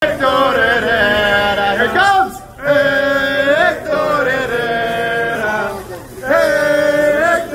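Men's voices singing a soccer supporters' chant, with long held notes broken by two short pauses, about two and six seconds in.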